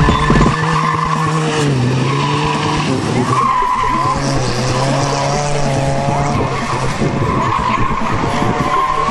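Rally car's engine running hard, its revs rising and falling with gear changes, while the tyres skid as the car slides.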